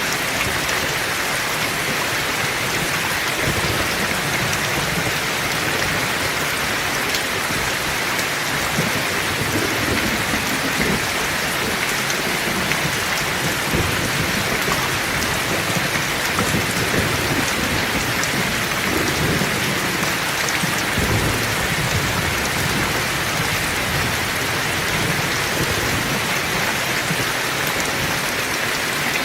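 Heavy rain falling steadily, with low thunder rumbling underneath that swells now and then.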